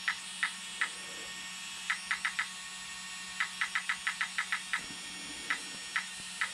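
Radio transmitter beeping once for each tap of its plus key while the steering end point is raised: about twenty short, identical high beeps, some spaced out and some in quick runs of several a second.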